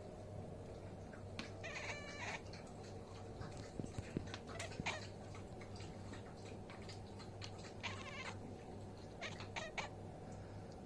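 House cat making strange vocal sounds: two short, pitched cries, one about two seconds in and one near eight seconds, among many quick clicking noises. A steady low hum runs underneath.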